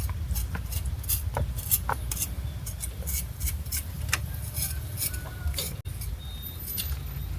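Kitchen utensils and dishes clinking and tapping in irregular light strikes, over a steady low rumble.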